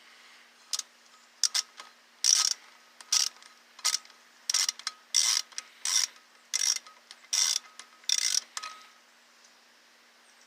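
Hand ratchet wrench clicking in short bursts, about a dozen back-strokes one after another, roughly one every two-thirds of a second, as a motor mount bolt is backed out.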